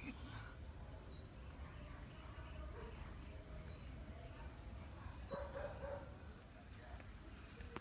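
Chick (young domestic chicken) peeping: short high chirps repeated about once every second or so, over a low background rumble. A brief lower-pitched sound comes about five seconds in.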